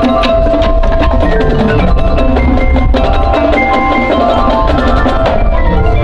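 Marching band playing, with mallet percussion and drums prominent among held pitched notes.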